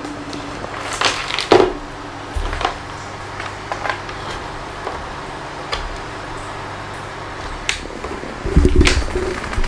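Room tone: a steady low hum and hiss, with scattered short clicks and knocks. A louder low rumble comes in near the end.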